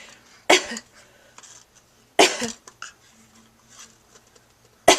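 An 8-month-old baby gives three short fake coughs, the last near the end, imitating his mother's cough.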